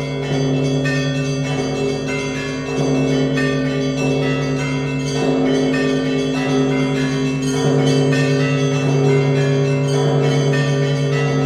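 Russian Orthodox festal bell ringing on the Danilov Monastery bells: many bells rung together, small bells in a quick, steady pattern over deep bells struck about every two and a half seconds and left to ring on.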